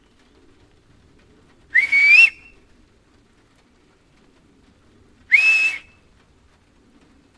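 Two loud finger whistles about three and a half seconds apart. Each scoops upward in pitch, then holds briefly, and is followed by a faint short echo returning off the hills.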